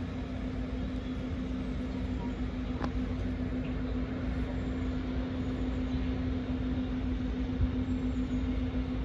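Class 156 diesel multiple unit pulling away down the line, its underfloor diesel engines giving a steady drone over low rumble.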